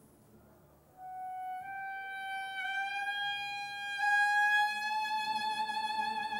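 Solo violin holding one long note that enters about a second in, creeps slightly up in pitch, takes on vibrato and grows louder about four seconds in.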